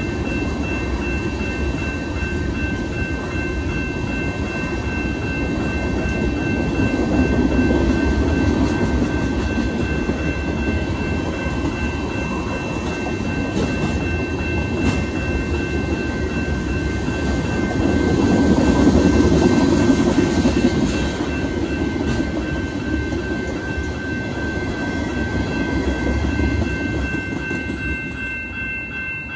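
A freight train's cars rolling through a grade crossing with steady rolling noise, over the continuous ringing of the crossing's electronic bells (two GS Type 2 and one WCH Type 2 e-bell). The rolling noise falls away near the end as the last car clears, leaving the bells.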